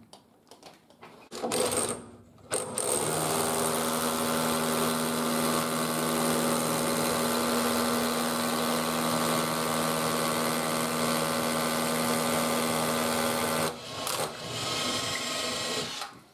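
Cordless drill running at one steady speed for about eleven seconds, driving a frame fixing through a timber stair string into the blockwork wall. It stops near the end, leaving a shorter, weaker run of tool noise.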